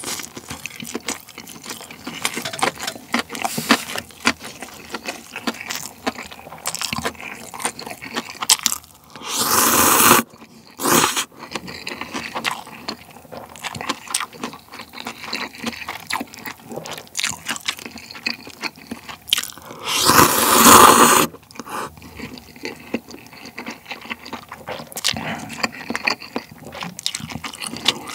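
Close-miked chewing of kimbap, with two loud slurps of cup ramen noodles, about nine and twenty seconds in.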